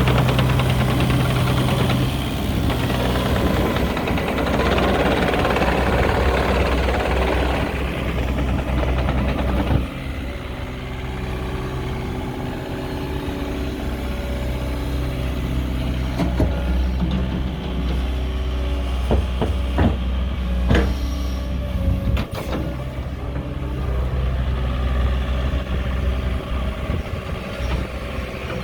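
The diesel engine of a JCB 48Z-1 midi tracked excavator running. It works harder and louder for the first ten seconds or so, then settles to a steadier run, with a few sharp knocks or clanks in the second half.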